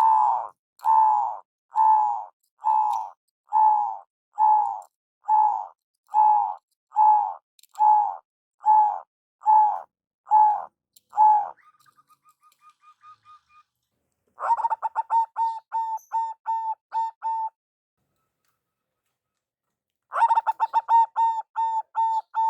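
Zebra dove (perkutut) calling: a slow, even series of about fourteen cooing notes, then after a short pause two quick runs of short staccato coos with a gap of silence between them.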